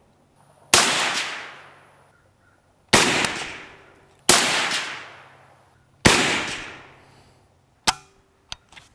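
Four 7.62x39 rifle shots from a Zastava M70 (Yugo AK), fired singly about one and a half to two seconds apart, each with an echo dying away over about a second. Near the end a short sharp clack and a couple of small clicks follow.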